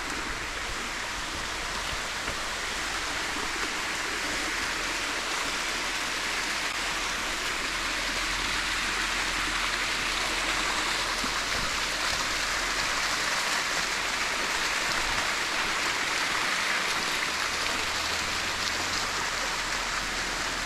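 Steady rush of water from a jungle stream and small waterfall running over rocks.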